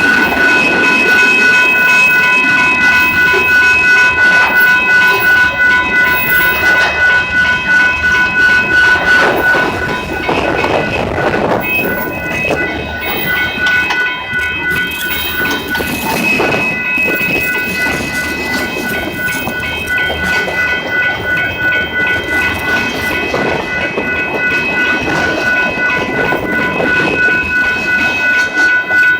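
Union Pacific locomotive's air horn sounding a long, held chord of several notes over the rumble and clickety-clack of a passing train. The horn weakens briefly around the middle, then sounds again.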